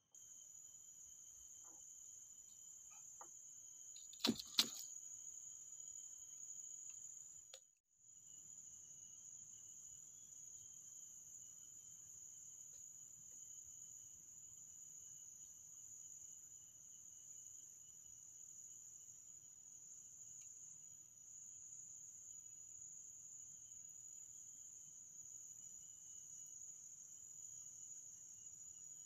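Insect chorus: a continuous high-pitched buzzing whine of crickets or cicadas. About four seconds in come two sharp knocks close together, and the chorus cuts out for a moment near eight seconds.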